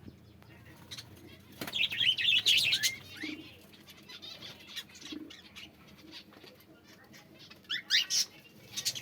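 Birds chirping: a loud cluster of quick chirps about two seconds in and a few falling chirps near the end, with short low notes between.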